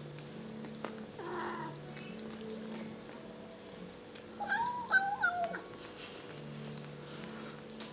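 Kittens mewing at the food bowl while they eat: a short warbling mew about a second in, then a louder, wavering, drawn-out cry around the middle.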